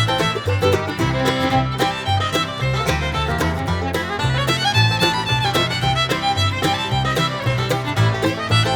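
Background music: upbeat bluegrass-style tune with fiddle and a steady bass beat.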